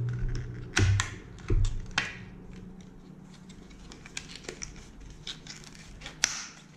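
Plastic blister pack being handled and turned in the hands: a run of small sharp plastic clicks and crackles, with a few louder knocks, one of them near the end as it is set down.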